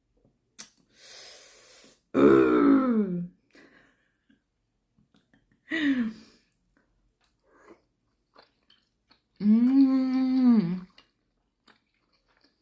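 Wordless voiced sounds from a person savouring a mouthful: a breathy exhale about a second in, then three drawn-out pitched vocal sounds, the last and longest near the end. Faint small mouth clicks from eating come in between.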